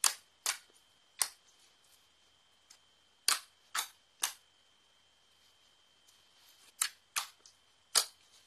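Slime being pressed and poked, giving sharp popping clicks: about nine pops in three loose groups of about three. A faint steady high tone runs underneath.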